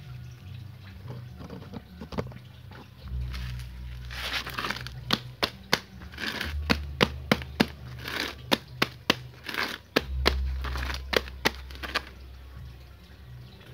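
A bonsai's soil and roots being worked loose from its pot by hand: crumbling, tearing soil, with a run of sharp clicks and taps, several a second, through the middle of the stretch.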